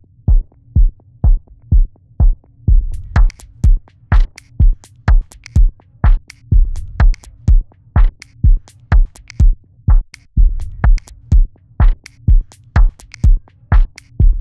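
Electronic drum loop with a steady kick about twice a second, played through a low-pass filter whose cutoff is stepped by a sequencer. It is muffled at first, then the hi-hats and bright top end open up about three seconds in.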